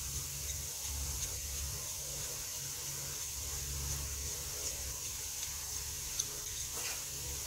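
Steady faint low hum and hiss, with a few faint light metal ticks as a nut is spun by hand along the threads of an old inner tie rod.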